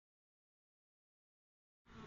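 Dead silence; right at the end a car begins to fade in faintly.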